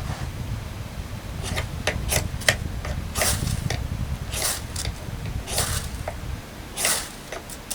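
Striker scraped down a Firesteel.com ferrocerium rod to throw sparks onto tinder: several quick short strokes, then four longer scrapes about a second apart. Low wind rumble on the microphone runs underneath.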